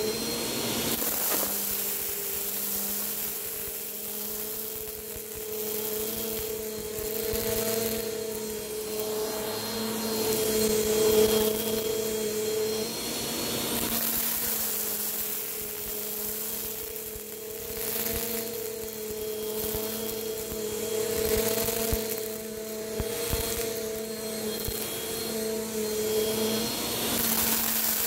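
Bissell PowerForce upright vacuum cleaner running over carpet: a steady motor hum and whine under a rush of air that swells and eases every few seconds.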